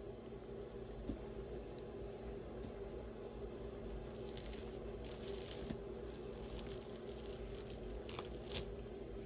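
A beaded necklace rattling and clicking as it is handled, the beads knocking together in clusters through the second half, with one sharper click near the end.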